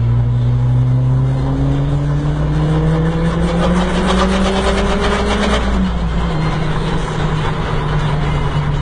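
Turbocharged GTI engine heard from inside the cabin, pulling under load while boost builds: its pitch rises steadily for about six seconds, then drops and holds steady. A fast, rhythmic hiss rises over it shortly before the drop.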